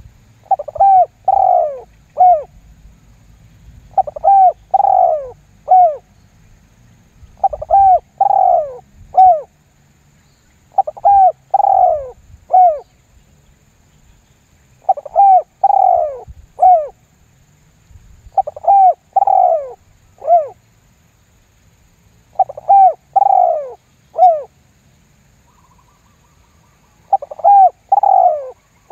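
Spotted dove (tekukur) decoy bird cooing: a three-note coo phrase repeated eight times, about every three and a half seconds, the call used to lure other wild doves.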